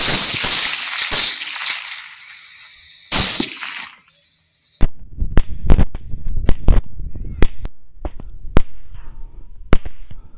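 Rifle shots fired in quick succession at feral hogs: about four shots in the first few seconds, then, after a short break, a faster string of about a dozen sharp shots.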